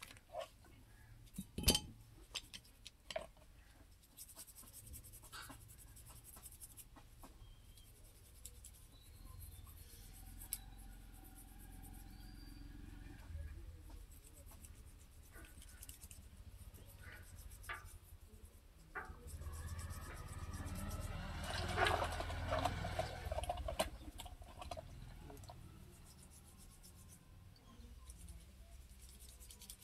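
Hand work on greasy metal parts of a tractor's front wheel hub and bearing during cleaning: scraping and rubbing, with a few sharp metallic clinks, the loudest about two seconds in. A busier spell of scraping comes about twenty seconds in, over a faint low hum.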